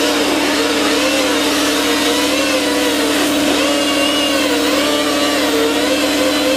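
Power grinder spinning a wire brush against the rusty steel of a riding mower deck, stripping the rust: a loud steady whine with higher tones that waver in pitch.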